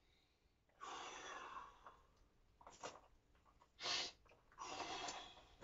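A man breathing hard in a few forceful breaths, two longer ones and two short sharp ones, from the effort of a heavy overhead dumbbell press.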